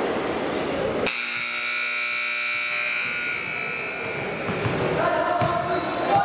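Gymnasium scoreboard buzzer sounding about a second in: a steady, high electronic tone that fades away over the next few seconds, with crowd chatter echoing in the gym around it. Such a buzzer signals a break in play ending or starting.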